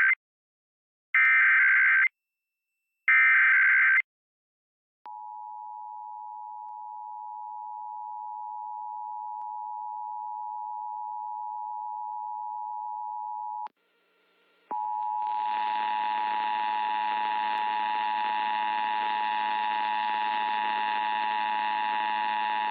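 Emergency Alert System Required Monthly Test tones. First come two short, screechy digital data bursts of the SAME header, about a second apart. Then the two-tone attention signal (853 and 960 Hz) holds steady for about nine seconds and cuts off. After a second's break it starts again, harsher, with a buzzy, noisy layer under the tones.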